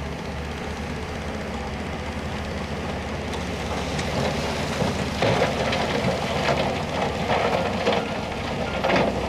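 Diesel engines of a dump truck and a Shantui crawler bulldozer running at a steady drone, with loud metallic clanking and rattling coming in about five seconds in and carrying on unevenly as the truck's bed starts to tip its load of rocks.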